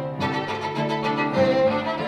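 Violin bowed in a classical chamber piece, with notes changing every fraction of a second and a lower string part sustained beneath.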